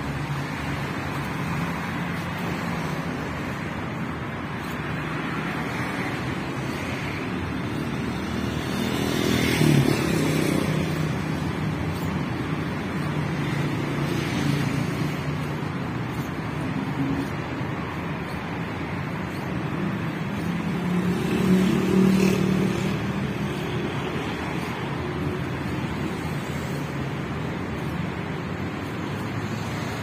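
City road traffic: a steady hum of car engines and tyres, with vehicles passing closer and louder about ten seconds in and again a little after twenty seconds.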